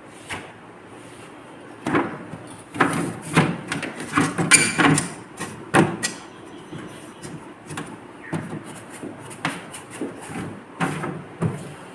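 Irregular knocks, clicks and rubbing from a refrigerator's interior being wiped and its parts handled, busiest in the first half and sparser after.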